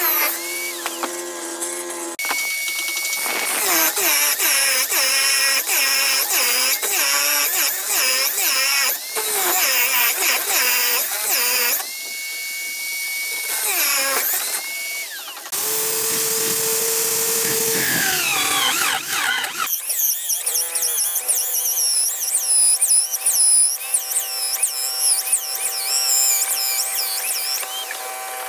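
Drill press boring holes in a wooden plank with large wood-boring bits: a motor whine that wavers in pitch as the bit bites into the wood. The tone changes abruptly several times between stretches of steady running and cutting.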